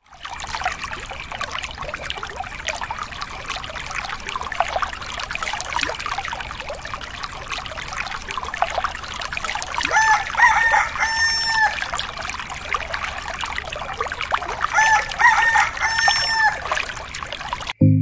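A stream of water from a small DIY motor pump's pipe pouring and splashing into a shallow pond. A rooster crows loudly twice, once about ten seconds in and again about five seconds later.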